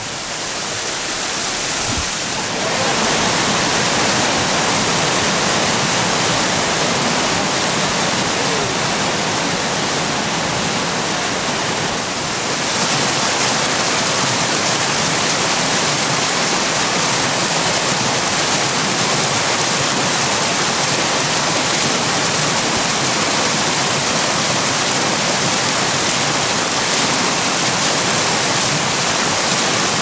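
Muddy river water rushing over a headworks weir, a loud, steady noise of churning water. It grows louder about two and a half seconds in and again about twelve seconds in.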